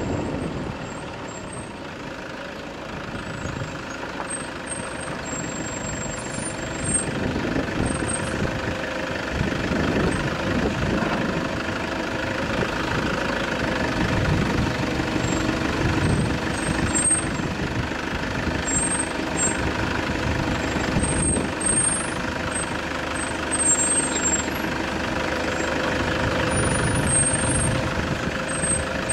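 A vehicle's engine running steadily with tyre and road rumble as it drives over a rough, muddy, rock-strewn road, heard from inside the cabin.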